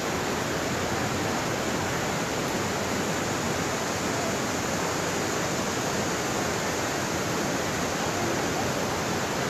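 Steady rush of water, from a river running over rocky rapids and falling over a low dam, with no change in level.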